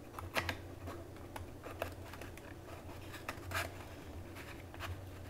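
Light clicks and scraping of small wooden craft pieces being handled and fitted together, a brace slid into slotted launcher pieces, over a faint steady low hum.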